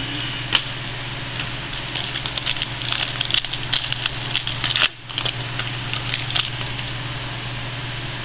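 Trading cards and their packaging being handled: a sharp click about half a second in, then bursts of quick crackling and rustling clicks for several seconds as cards are flipped and slid, over a steady low hum.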